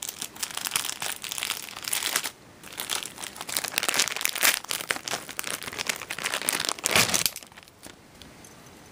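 Stiff plastic packaging of a pack of banana plugs crinkled and crunched by hand in dense, irregular crackles as someone struggles to open it. There is a brief pause about two seconds in, and a loud last crunch about seven seconds in, after which the crackling stops.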